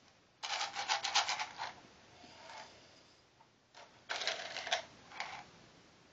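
Small crackers rattling and clattering in a small cup, in two bursts of quick clicking a few seconds apart.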